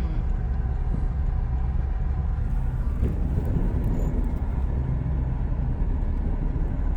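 A vehicle driving: a steady low rumble of engine and tyres.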